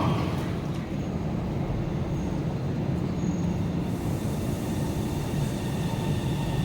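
Guangzhou Metro Line 22 train running with a steady low rumble. A high wheel squeal dies away right at the start.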